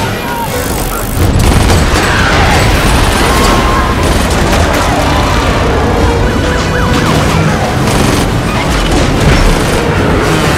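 Several action-film soundtracks playing over one another at once: music, booms and gunfire mixed into a dense, loud wall of sound that gets louder about a second in.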